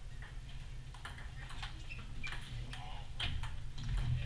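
Table tennis rally: a celluloid ping pong ball clicking off paddles and bouncing on the table, about a dozen sharp clicks at an uneven pace, over a steady low rumble.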